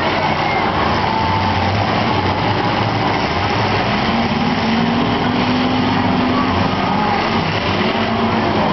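Demolition derby cars' engines running and revving together in a loud, steady din, one engine's pitch climbing partway through as the cars push against each other.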